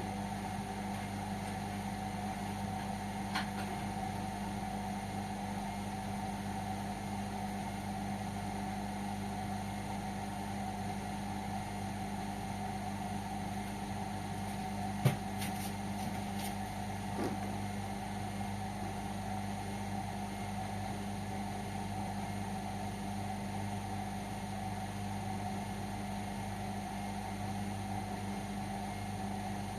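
Indesit washing machine running on a 60-degree cotton cycle: a steady motor hum, with a sharp click about halfway through and a couple of fainter ones.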